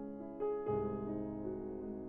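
Background piano music: sustained notes changing every half second or so, with a deeper, fuller chord coming in under them a little under a second in.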